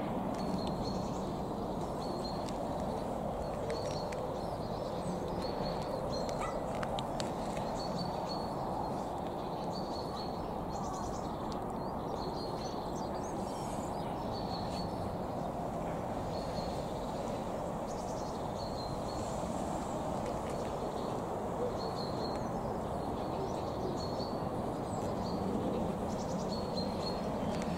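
Wind noise buffeting the microphone, with a small bird calling over it in short high chirps every second or two.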